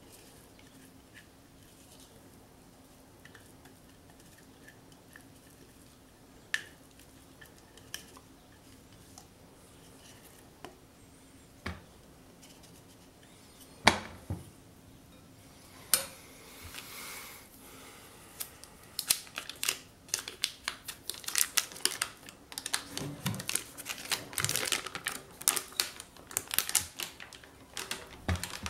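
Scattered clicks and knocks of a utensil and a plastic chopper bowl against a glass mixing bowl. About two-thirds of the way through they turn into a quick, busy run of clinks and scraping in the bowl.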